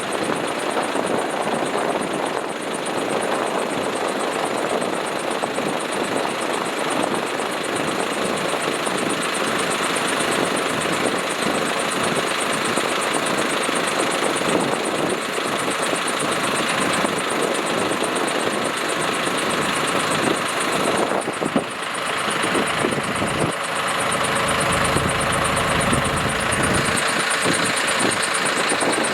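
Diesel engine of a construction machine running continuously. About three-quarters of the way through it turns deeper and heavier for a few seconds, with a steady whine over it.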